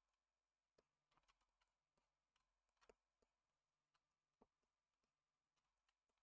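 Near silence, broken by faint, irregular ticks of a stylus tapping and dabbing on a graphics tablet.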